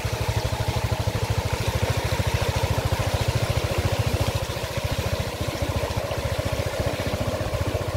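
Motorcycle engine running steadily at low speed, with a rapid, even pulse, under a steady hiss as the bike moves along a flooded road.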